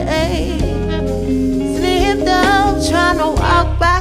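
A live band playing: a woman singing over electric bass, drum kit and saxophone.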